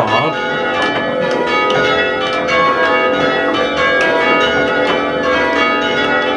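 A ring of six church bells, the back five cast by the Rudhall foundry of Gloucester, rung full-circle in change ringing. The strikes follow one another in a steady run, and each bell's ring overlaps the next.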